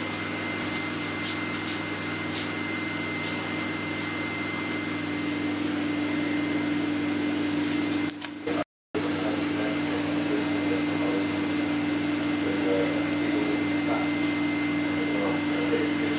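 Steady electrical machine hum with a constant pitched drone. A few faint clicks sound in the first few seconds, and the sound cuts out completely for a moment a little past halfway.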